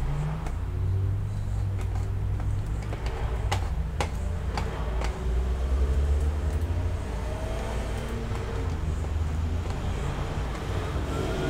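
Low steady rumble, louder about halfway through, with a few sharp clicks near the middle.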